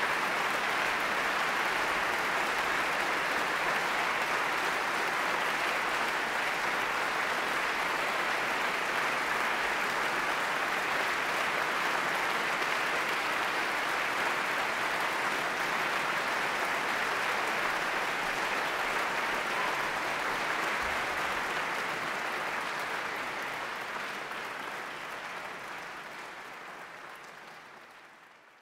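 Audience applauding steadily, fading out over the last several seconds.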